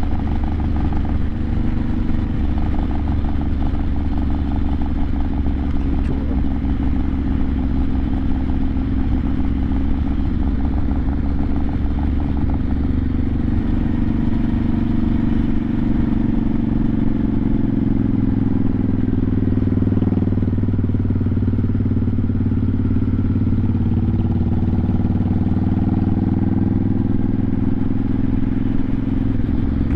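1986 Honda Shadow 700 (VT700C) V-twin engine running under way at cruising speed. Its note shifts about halfway through, dips, and then climbs again.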